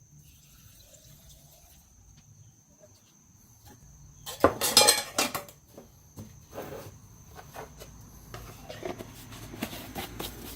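Metal nuts and bolts clinking and rattling in a container. A dense burst of clinks comes about four and a half seconds in, followed by scattered clinks and knocks.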